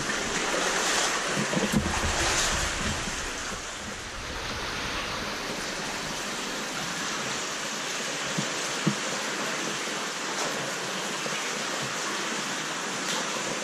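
Steady rushing of an underground stream flowing through a cave passage, a little louder in the first few seconds. A few faint knocks sound over it.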